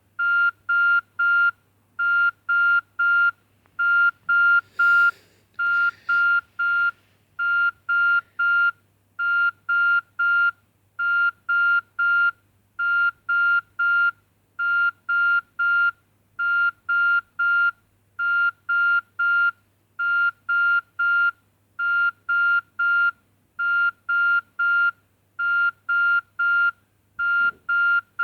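Nokia 2610 mobile phone playing a beeping ringtone through its small speaker: a high electronic beep in quick groups of three, the group repeating about every two seconds, over a faint steady low hum. A brief noise about five seconds in.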